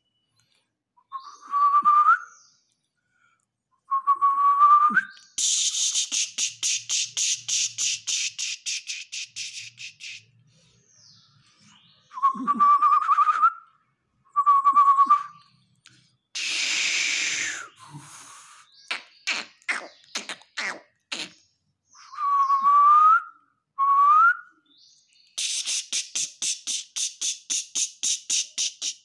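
A person making calling noises at a puppy: about six short rising whistles, two long runs of rapid clicking trills at about eight clicks a second, a hiss, and a quick string of sharp clicks.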